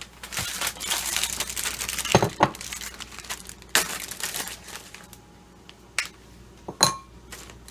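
A wrapper being crinkled and handled in a run of dense crackling for several seconds, thinning to scattered clicks, then a single sharp clink with a brief ring near the end.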